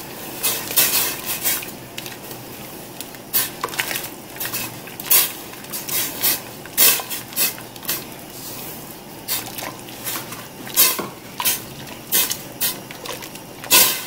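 A whisk clinking and scraping against the sides of a stainless steel pot in quick, irregular strokes as polenta cornmeal is whisked into boiling chicken broth. A steady hiss of the bubbling broth runs underneath, and the loudest clinks come near the end.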